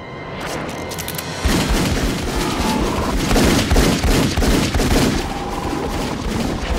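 Rapid film-soundtrack pistol fire: after a brief build-up, a dense volley of shots starts about a second and a half in and keeps going.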